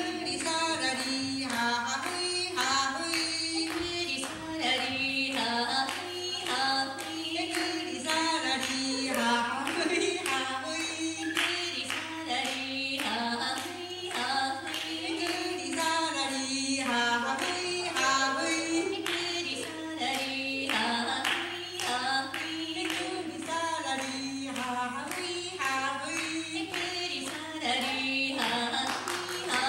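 Women's voices singing a traditional Ainu song without instruments, kept in time by steady, evenly spaced hand claps.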